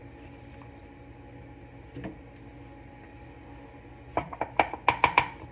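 Metal utensil clinking against a pan: one soft knock about two seconds in, then a quick run of about six sharp clinks near the end, over a faint steady hum.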